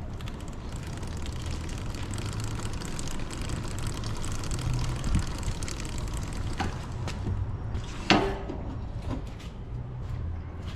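Yamaha Ténéré 700 being pushed by hand, its drive chain running over a replacement KTM chain roller without the chattering the stock roller made. A sharp click about eight seconds in.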